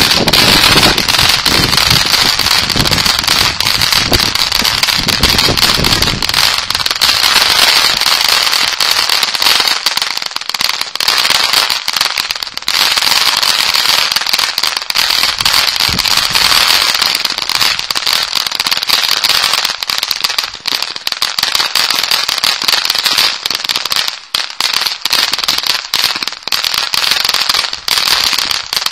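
Ground fountain firework burning: a loud, steady hiss thick with fast crackling that starts suddenly as it ignites, with a deeper rush in its first several seconds.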